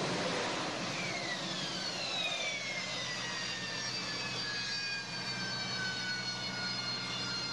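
AV-8B Harrier's Rolls-Royce Pegasus turbofan running with a steady jet rush and several high whines that slide steadily down in pitch as the engine spools down once the jet has settled on the deck.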